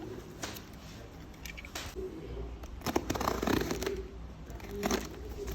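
A parcel being handled and opened: scattered clicks and rustling of packaging, busiest about three seconds in.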